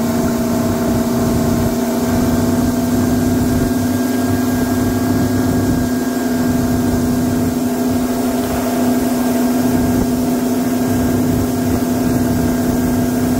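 Mercury Verado four-stroke outboard running steadily at cruising speed, its pitch holding level, with wind and water rushing past the moving boat.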